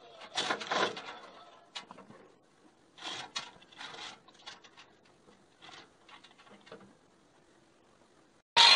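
Irregular scrapes and clanks of steel parts of a welded steel smoker box being handled, loudest in the first second and again around three to four seconds in, then dying away. Near the end a loud, steady angle grinder starts abruptly.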